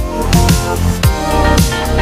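Instrumental background music with a steady drum beat of about two hits a second, over held bass and melody notes.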